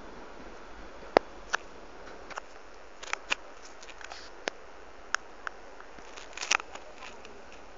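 Irregular sharp clicks and taps over a steady hiss, loudest a little after one second and in a quick cluster near the end.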